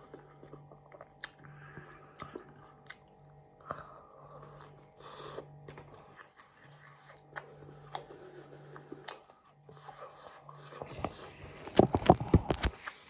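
Close-up chewing and biting of battered fish from fish and chips, with small crunchy clicks. Near the end comes a short, loud burst of crackling close to the microphone.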